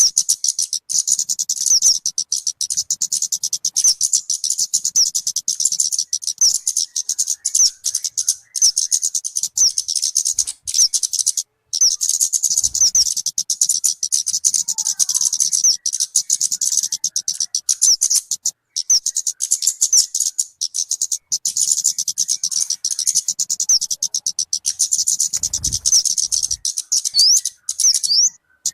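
Song of the bird known in Indonesia as talokan or kemade: a fast, unbroken run of high, thin chirping notes, pausing briefly a few times.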